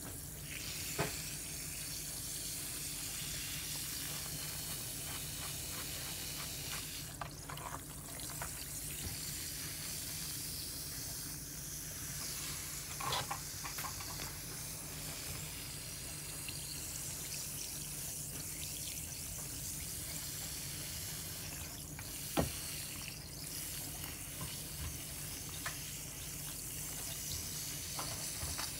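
A fizz bomb fizzing as it dissolves in a bowl of water, with hands swishing and dabbling in the water to break it open. A few sharp small knocks stand out, the loudest about two-thirds of the way through.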